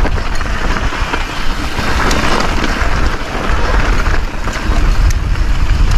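Mountain bike descending a dirt trail at speed: wind buffeting the on-bike camera's microphone over the rumble of tyres on dirt and rocks, with light clicks and rattles from the bike over rough ground.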